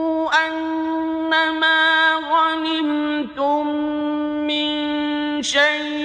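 A man reciting the Quran in Arabic in melodic tajweed style, drawing out long held notes, with short breaks between phrases and a wavering ornament near the end.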